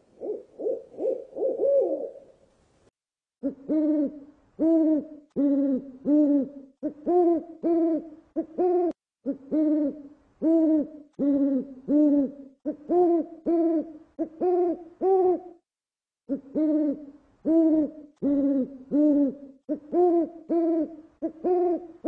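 An owl hooting: a long series of short, quick hoots, about one and a half a second, with two brief pauses. The first couple of seconds hold a quicker run of overlapping notes.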